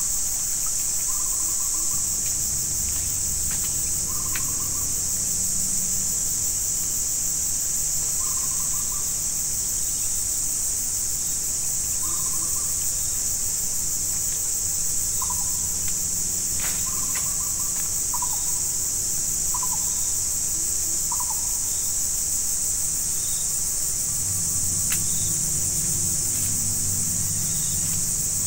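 Steady high-pitched insect chorus of the swamp forest, with short animal calls repeating every second or two, several of them sliding downward in pitch. A low hum rises underneath near the end.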